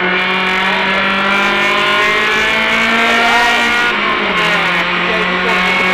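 Honda Civic 1.6 VTi's VTEC four-cylinder engine under throttle on track. The revs climb steadily for about four seconds, then the pitch dips and holds level.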